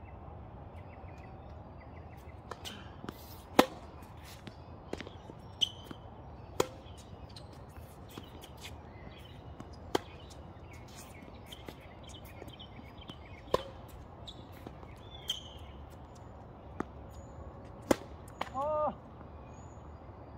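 Tennis ball being struck by rackets and bouncing on a hard court during a rally: a string of sharp pops a few seconds apart, with quieter ones between. Near the end there is a short pitched call.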